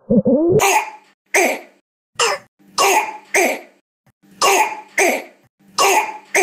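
A child's harsh, barking croup cough: about eight coughs, mostly in pairs, each with a hoarse pitched bark. The bark comes from swelling of the vocal cords and windpipe in croup, a viral laryngitis.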